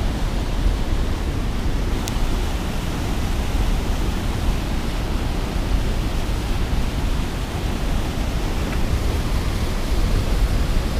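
Water pouring over a dam spillway and churning below it: a steady rushing noise, heaviest in the low end.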